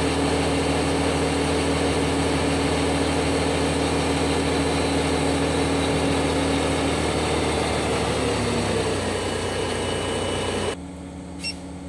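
Liebherr LTM 1120-4.1 mobile crane's engine and hydraulics running with a steady hum and whine as the counterweight lifting cylinders extend downward; the pitch wavers and shifts about eight to nine seconds in. Near the end the sound drops suddenly to a quieter hum with two short beeps.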